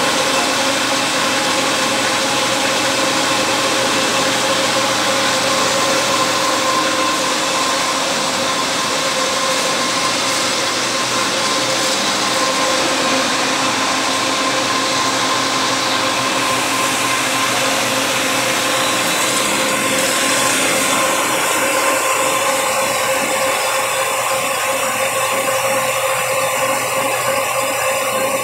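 Metal-working centre lathe running and turning a metal bar: a steady mechanical hum with a constant whine. A few thin high-pitched tones join it about two-thirds of the way in.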